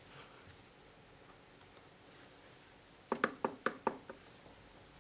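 Gears of a 1979 Triumph Spitfire differential carrier clicking as they are turned back and forth by hand: about seven quick metallic clicks within a second, about three seconds in. The clicks come from the gears taking up their play, which sounds like backlash.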